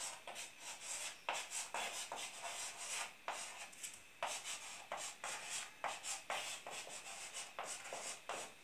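Chalk scratching on a blackboard as words are handwritten: a run of short, irregular scraping strokes.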